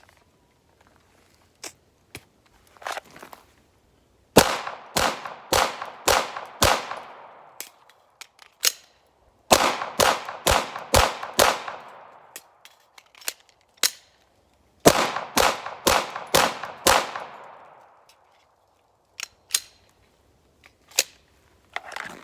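Glock 17 Gen 5 9mm pistol fired in three quick strings of five shots, about two shots a second. Between strings come a few small clicks from the magazine changes.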